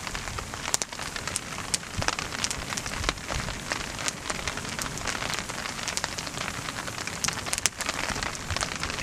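Wood campfire crackling, with sharp pops scattered through a steady hiss.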